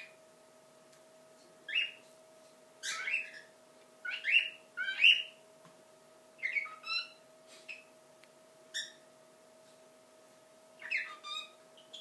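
Cockatiel singing: about eight short whistled phrases, each a second or less, with pauses between them.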